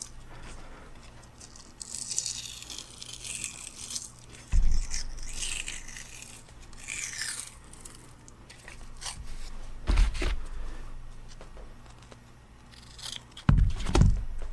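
Cloth hockey tape being pulled off the roll and wrapped around a hammer's handle: rasping, tearing-like rubs of the tape peeling and sliding, with a few dull thumps as the hammer is handled, the loudest near the end.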